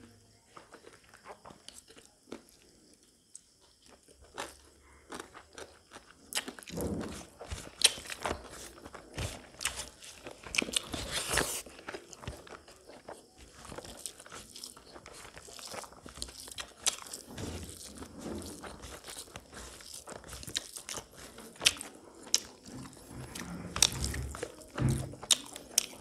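Close-miked eating sounds: chewing of pork and rice with wet smacks and crunches, and fingers working rice on a banana leaf. Quiet for the first few seconds, then a steady run of short sharp mouth clicks.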